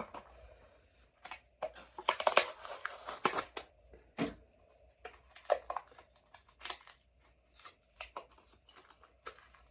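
A Hot Wheels blister package being opened: stiff plastic crinkling and card tearing in irregular crackles, busiest for about a second and a half from two seconds in, then in scattered short snaps.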